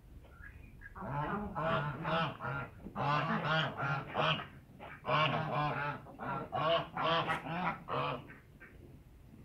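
A flock of domestic geese honking in loud, overlapping bursts, starting about a second in and dying down near the end.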